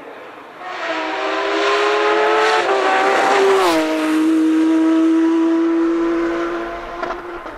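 Rally car engine approaching under power, its pitch climbing steadily as it nears. It passes close by with a sharp drop in pitch about three and a half seconds in, then runs away at a steady pitch, fading near the end.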